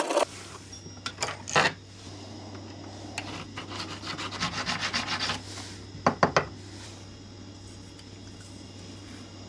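Small needle file rasping in the slot of a dark wooden knife-handle block. There are a couple of short strokes about a second in, a quick run of strokes around the middle, and a few louder strokes about six seconds in. It is quieter for the last few seconds, when the block is being fitted.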